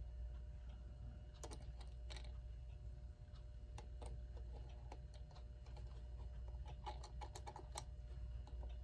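Light, scattered clicks and taps of small clock gears and parts being fitted back into an electric clock movement during reassembly, with a quick run of clicks about seven seconds in, over a low steady hum.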